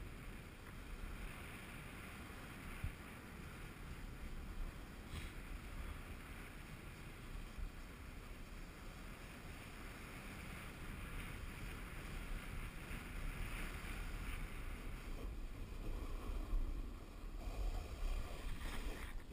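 Steady hiss of snow under a rider sliding down fresh powder, with wind rumbling on the camera microphone; it grows louder over the last few seconds.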